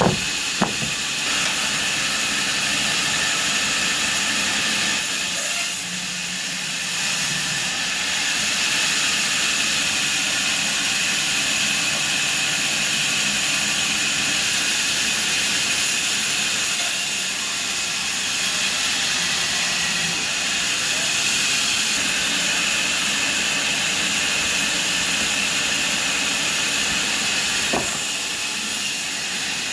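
Sawmill saw running steadily, a loud even hiss that barely changes, with a sharp click about half a second in and another near the end.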